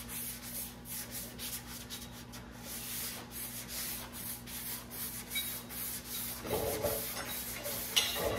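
Hand sanding: 320-grit sandpaper rubbing back and forth in irregular strokes over a high-build primer surface with guide coat.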